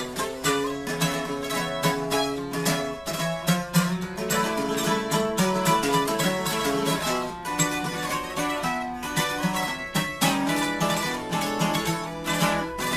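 Two acoustic guitars in duet: a quick picked requinto lead line over a rhythmic accompaniment guitar, played cleanly and in time.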